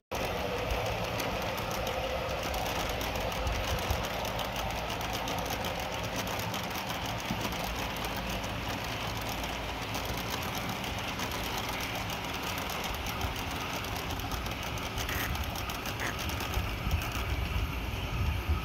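Metal wheels of a long G-scale train of loaded hopper cars rolling over outdoor track and a diamond crossing: a steady stream of rapid clicks over a low rumble.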